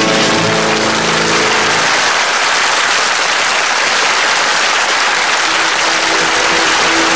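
Audience applauding, with the closing notes of music beneath it for about the first two seconds.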